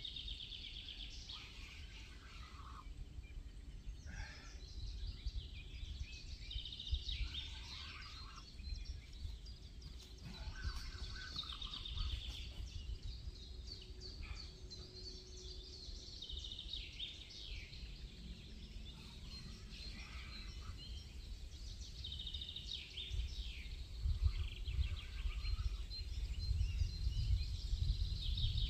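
Several songbirds singing and calling in repeated short chirps and trills, over a low outdoor rumble that grows louder in the last few seconds.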